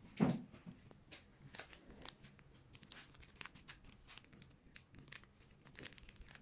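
Plastic packaging bags crinkling and rustling in short scattered crackles as a stack of anti-static bags is picked up and handled, with a thump just after the start.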